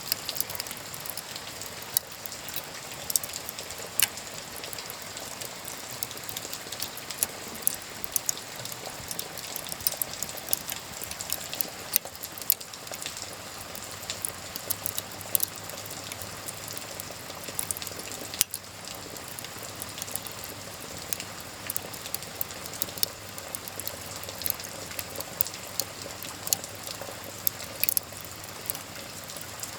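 Wood fire crackling, with sharp irregular pops scattered throughout, over a steady hiss of rain.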